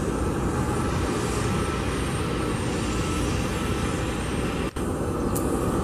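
Boeing 747-400 freighter's jet engines running steadily as the aircraft moves along the runway, a steady roar of engine noise that cuts out for an instant about three-quarters of the way through.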